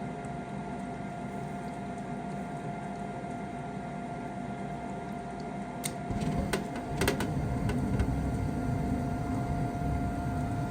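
Gas furnace running its inducer motor with a steady hum while the igniter heats; about six seconds in come a few clicks and a louder low rumble that carries on, the sound of the gas burners lighting.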